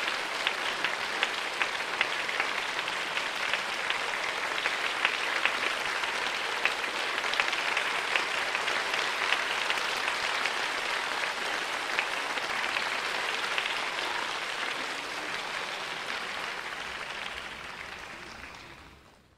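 Theatre audience applauding, a dense steady clatter of many hands clapping that fades away over the last few seconds.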